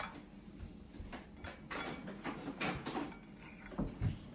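Faint, scattered clicks and taps of spoons on dishes while dessert is eaten.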